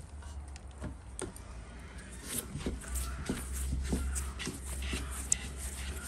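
Hands working sticky bread dough, then rounding a dough ball on a floured wooden board: soft, irregular slaps and taps over a low, steady rumble.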